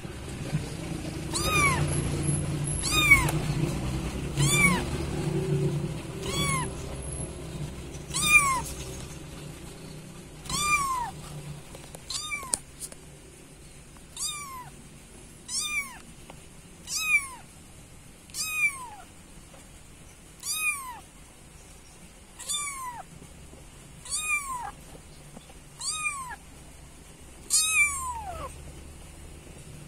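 Kitten meowing repeatedly in high, thin calls, about one every one and a half to two seconds, each call rising and falling in pitch. This is the calling a kitten makes for its mother.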